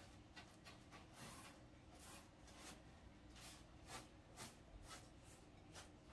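Faint, irregular swishes of a paintbrush being stroked over a plywood cabinet's inside corners, about two strokes a second.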